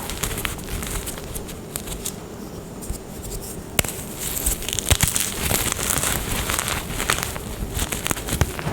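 Glittery gym chalk being crushed and crumbled, a run of crunches and crackles. There is a quieter lull about two seconds in, broken by a sharp crack a little before four seconds, and then the crunching picks up again.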